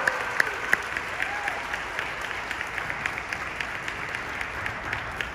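Audience applauding after a skating routine, a dense patter of hand claps with a few sharp single claps near the start, slowly dying down.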